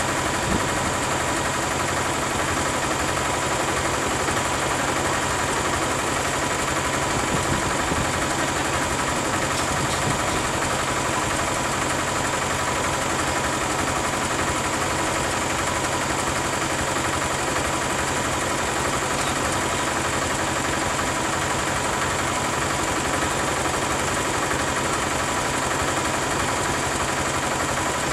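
Bus engine idling steadily.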